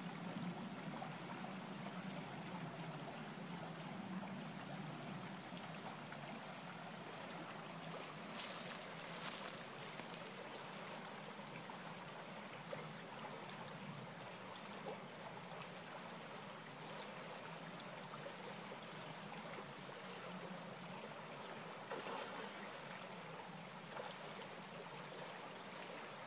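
Shallow creek water flowing steadily, with a brief louder rush about eight seconds in.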